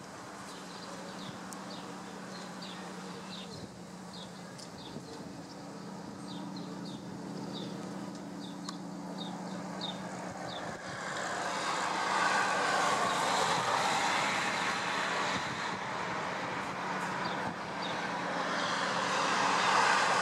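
Harbour ambience: a steady low machinery hum with faint high chirps over it. About halfway through, a rushing noise swells up, eases, then swells again near the end, loudest of all.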